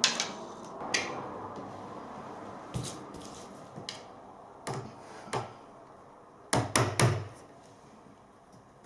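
Scattered knocks and taps of wood and tools being handled during board work, with a quick cluster of three louder knocks about two-thirds of the way through.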